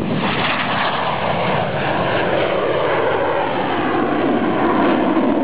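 Fighter jet's engines during a low pass and climb-out: a loud, continuous rushing noise whose pitch slowly falls as the jet goes by.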